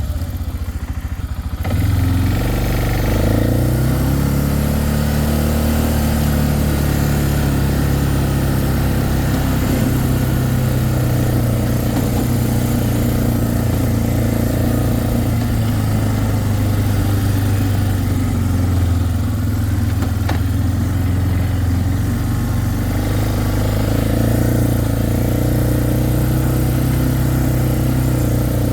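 Four-wheeler (ATV) engine running steadily while being ridden, its pitch rising and falling a few times with the throttle.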